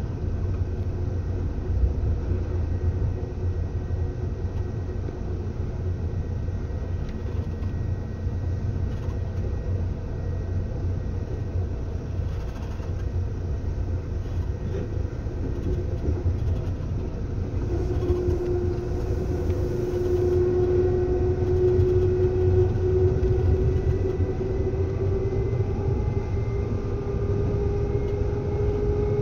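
Seibu 2000 series electric train running, heard from inside the passenger car: a steady low rumble from the wheels and track. About two-thirds of the way through, a humming tone grows louder and slowly rises in pitch as the overall sound swells.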